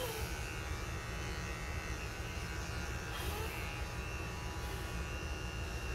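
Small, inexpensive electric dog clippers buzzing steadily as they trim belly hair.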